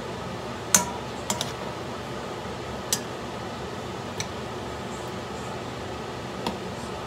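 Metal spoon clinking and scraping against a stone-coated wok while stirring tomatoes and onions. There are six sharp clinks, the loudest about a second in, over a steady background hiss.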